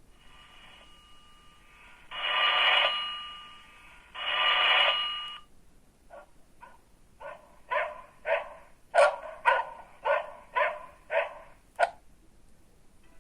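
Sagem MyX-6 mobile phone playing a built-in ringtone through its small speaker. Two long swelling tones come first, then a run of short notes about every half second, growing louder.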